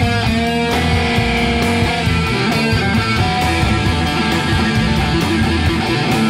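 Blues-rock band playing an instrumental passage: electric guitar over bass and drums, with sustained pitched notes and a steady beat.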